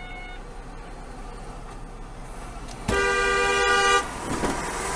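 Car horn sounding once, a single steady blast held for about a second, starting about three seconds in, over a steady low rumble of road noise.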